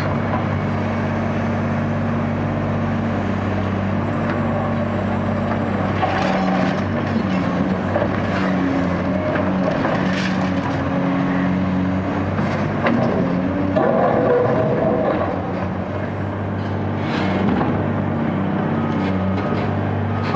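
Caterpillar 385C UHD demolition excavator's diesel engine running steadily, its pitch shifting from about six seconds in as it works, with repeated sharp cracks and knocks of concrete being broken up.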